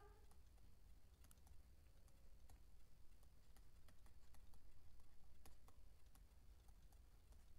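Near silence with faint, irregular clicks and taps from writing notes on the screen.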